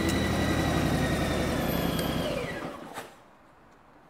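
Car engine running steadily, then switched off a little over two seconds in, its hum and high whine falling away, followed by a single click.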